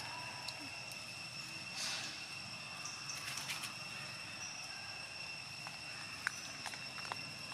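Short rustles and light crackles of dry leaf litter as a baby monkey steps and paws over it, with a few sharp ticks near the end, over a steady high-pitched whine.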